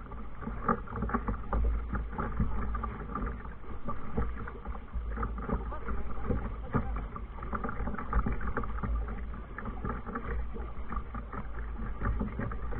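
Kayak moving on water: irregular splashes and knocks against a steady low rumble.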